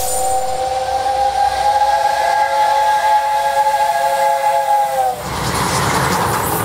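Steam locomotive whistle sounding a chord of several notes at once, held for about five seconds and sagging slightly in pitch as it stops. After it comes a loud hiss of escaping steam.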